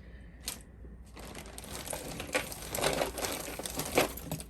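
Crinkling and rustling as items from a lot of craft jewelry are handled, with a dense run of small crackles starting about a second in. A sharp click comes just before.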